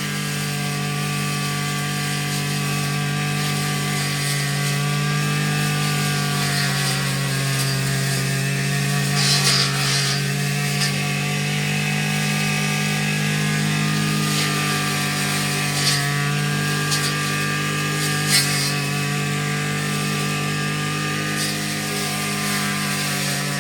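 Small-engine grass trimmer (brush cutter) running steadily at high speed while cutting grass, its engine note holding an even pitch, with a few sharp ticks along the way.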